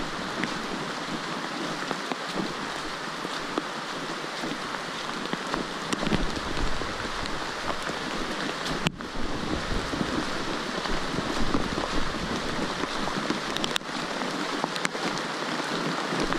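Steady rain falling on dense forest foliage, an even hiss, with wind rumbling on the microphone through the middle stretch and a few light clicks.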